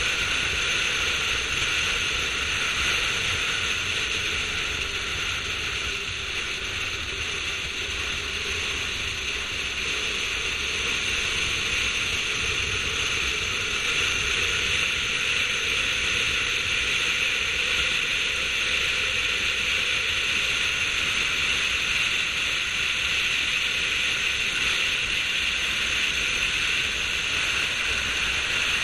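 Steady rushing wind noise on a roof-mounted action camera's microphone as the car drives around the track, with a low rumble of the car and tyres beneath it.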